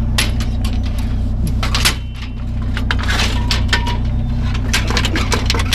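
Metal bed-frame rails clanking and scraping against one another as they are stood upright and shoved together in a pickup's bed: a quick, irregular run of sharp metallic clinks. Under it is the steady hum of the truck's idling engine.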